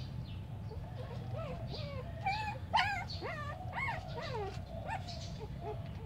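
Young puppies whimpering and yelping in many short squeals that bend up and down in pitch, busiest about halfway through, over a steady low hum.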